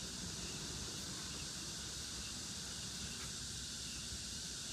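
Steady background hiss with no distinct sounds standing out.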